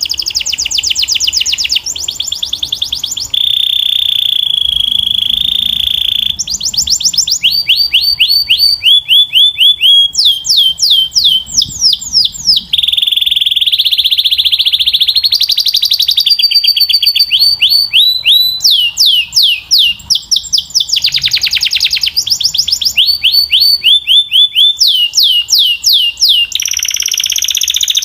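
Domestic canary singing a continuous, loud song. It moves from phrase to phrase: fast trills of repeated falling notes, alternating with held rolling notes, each phrase lasting one to a few seconds.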